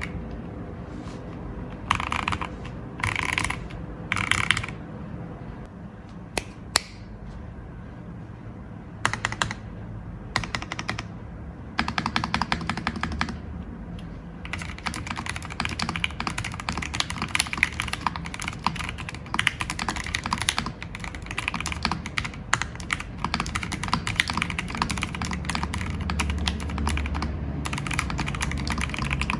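Typing on a Keychron V5 Max mechanical keyboard with Gateron Jupiter Red linear switches: short bursts of keystrokes with pauses, then steady fast typing from about halfway on. The switches are stock at first; after a pause about a quarter of the way in they are lubed with Krytox 205g0.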